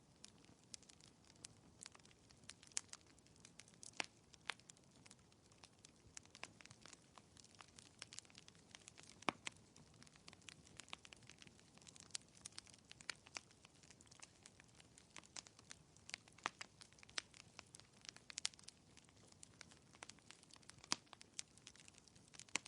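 Quiet wood fire crackling in a fireplace: irregular sharp pops and snaps over a soft, low hiss.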